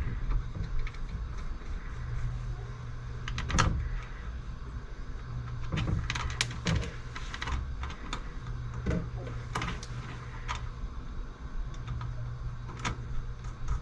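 Scattered light metallic clicks and clinks of hand tools and small transmission parts being handled, over a steady low hum.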